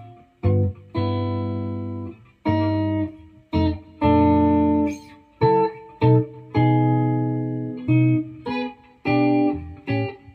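Firefly FFLG SG-style electric guitar played through a Fender combo amp on its neck pickup: a string of about a dozen chords, each ringing briefly and then stopped short.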